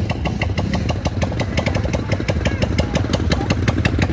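ATV (quad bike) engine running, with a rapid clicking rattle over its low drone.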